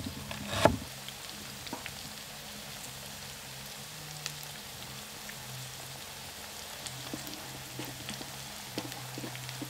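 Chicken frying in oil in a wok over high heat: a steady sizzle, with a few light clicks.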